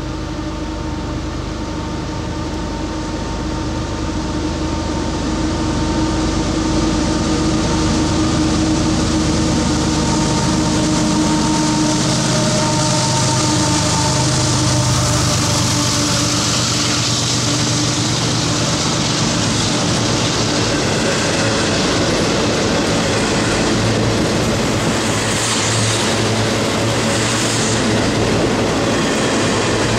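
CSX GE ES44AC diesel-electric locomotive approaching and passing under power, its steady engine drone growing louder to a peak about halfway through. Then the continuous rumble and clatter of double-stack intermodal container cars rolling by on the rails.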